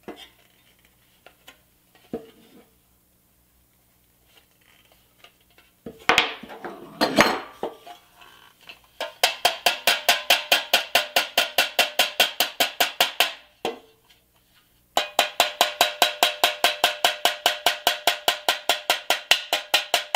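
Plastic-tipped hammer tapping fast on the pressed-steel body panel of a 1960 Tonka toy truck to fold its tabs flat: an even run of about five strikes a second, each ringing in the sheet steel, in two bursts of several seconds with a short pause between. Before the hammering, a few light clicks and a clatter about six seconds in.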